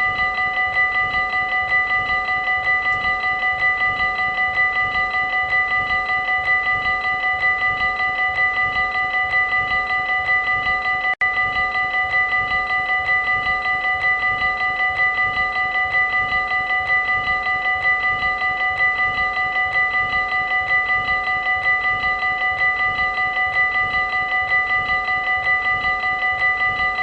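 Dutch railway level-crossing warning bell ringing continuously in fast, even strokes with a bright, steady ringing tone, broken once by a momentary gap about eleven seconds in.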